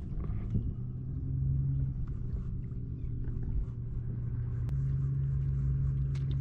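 A steady low engine hum that gets a little louder about three-quarters of the way in, with a few faint clicks over it.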